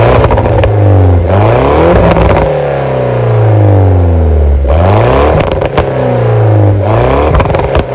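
Mini R56's four-cylinder engine being revved repeatedly through a factory JCW exhaust with the resonator cut out, heard at the tailpipes. Each time the revs rise quickly, then fall away more slowly, and the note is really fruity.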